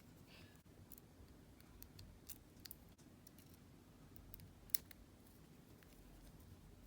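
Faint, scattered small clicks and ticks of tiny heat-sink screws and a small screwdriver being handled, with one sharper click about two-thirds of the way through.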